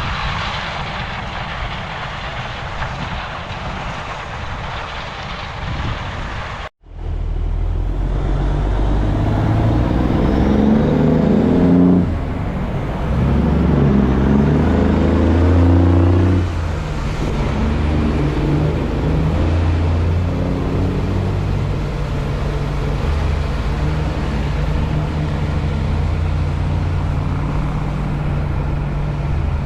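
Steady rushing noise for about seven seconds, then an abrupt cut to the low drone of a heavy diesel harvest machine, its pitch shifting several times and loudest in the middle stretch.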